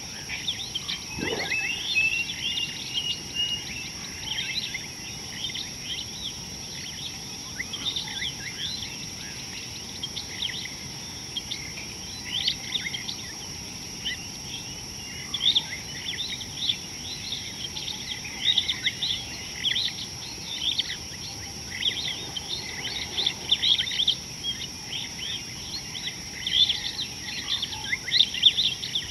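Natural outdoor ambience: many short bird chirps and calls, coming thick and fast, over a steady high-pitched insect drone.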